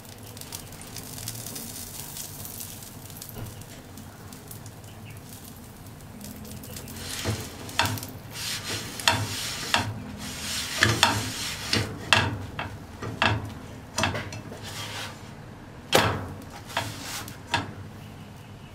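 Butter sizzling in a nonstick frying pan under a grilled cheese sandwich. From about seven seconds in, a spatula scrapes and taps against the pan and presses on the sandwich, a run of sharp scrapes and clicks that stops shortly before the end.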